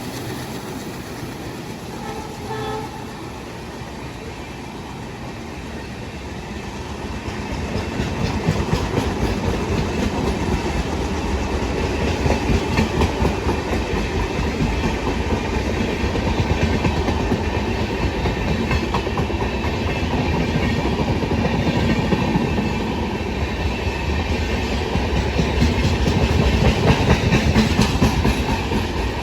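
A pair of Indian Railways mainline diesel locomotives working a train under acceleration. The engines run louder from about seven seconds in, over a steady rumble and clicking of wheels on the rail.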